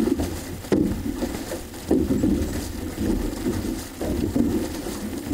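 Outrigger canoe (OC-6) crew paddling: paddle blades catching the water in a steady rhythm, about one stroke a second, over a constant wash of water along the hull.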